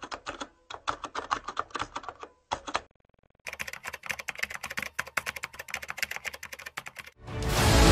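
Typing sound effect: rapid keystroke clicks in two runs with a short pause between. Music swells in near the end.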